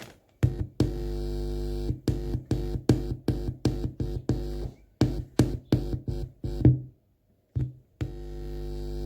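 Electronic music with a drum-machine beat and sustained synthesizer chords, played through Altec Lansing AVS 300 computer speakers as a test that they work. The music drops out for about a second near the end, then starts again.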